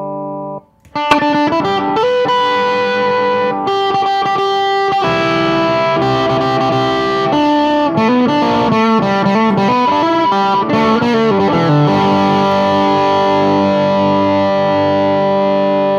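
Electric guitar played through a Junko Junco 15-watt SLO-style amp head on its overdrive channel, with heavy distortion. A ringing chord is cut off at the start. After a short gap, chords are struck about a second in, then a busier riff and a descending single-note run, ending on a long sustained chord.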